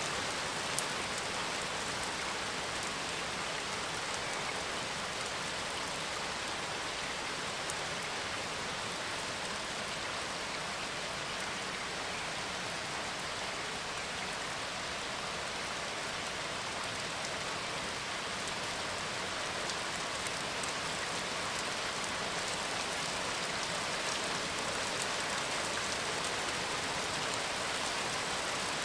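Steady, heavy rain falling on a surface, an even hiss with a few sharper drop ticks here and there.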